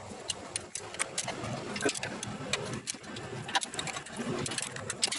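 Irregular metallic clicks in short runs: a socket ratchet snugging the bolts of a freshly gasketed transmission pan, tightened firm rather than to full torque.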